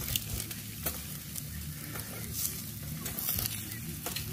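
Chicken breasts and pork steaks sizzling on a small portable charcoal barbecue grill, a steady hiss, with a few light clicks of the metal tongs against the grate as the meat is turned.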